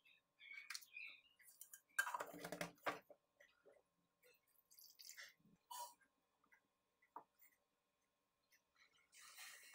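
Near silence with faint scattered clicks and a short clatter about two seconds in.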